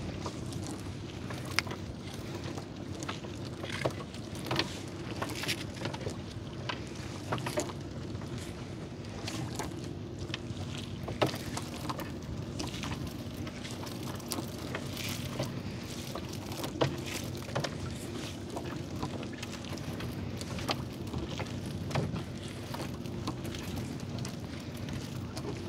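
A wet nylon gill net being hauled by hand over the gunwale of a wooden boat: irregular drips, small splashes and knocks of net against the hull, over a steady low hum.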